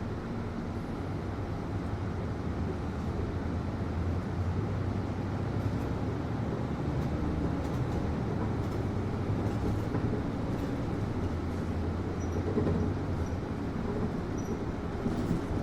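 Steady interior noise of a city bus: the air-conditioning hum and whoosh over a low engine and road rumble, which grows a little louder a few seconds in.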